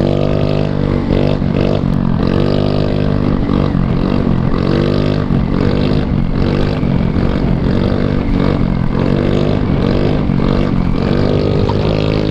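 GY6 150cc single-cylinder four-stroke scooter engine being ridden hard, the revs rising and falling in repeated swells about once a second as the throttle is worked through a wheelie, with wind rush over the helmet microphone.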